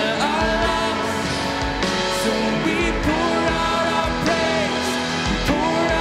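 Worship band playing a song, with a voice singing the melody over the instruments.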